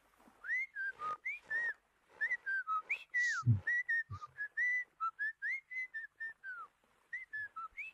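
Someone whistling a tune in a string of short notes that slide up and down, with short pauses, on the cartoon soundtrack. A brief low thump comes about three and a half seconds in.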